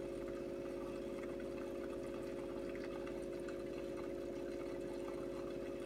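Steady hum of aquarium pumps with a faint trickle of water, from a tank filtered through a sump and air-driven sponge filters.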